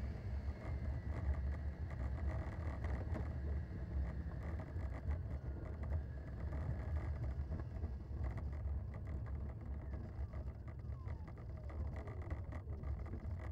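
Steady low rumble picked up by an onboard camera in a radio-controlled model jet as it taxis on the runway. A faint whine runs underneath, and a couple of faint tones drop in pitch near the end.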